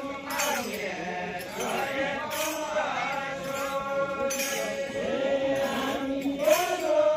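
A group of men singing a Deuda folk song together, a slow chant with long drawn-out notes held on a steady pitch.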